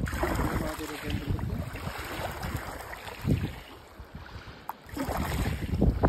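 Small waves lapping and washing over a pebble and rock-slab lakeshore, with wind buffeting the microphone. The wash swells about three seconds in and again near the end.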